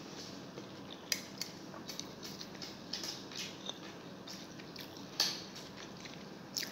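Fingers gathering rice and adobo on a plate: scattered small clicks and scrapes against the plate, with soft wet eating sounds. The loudest click comes about five seconds in.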